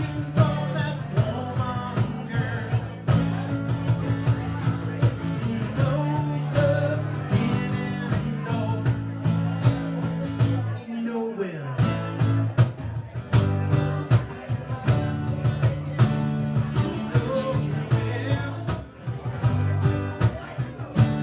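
A small band playing a rock-blues song: guitar over steady low notes and a driving beat, with a downward slide in pitch about eleven seconds in.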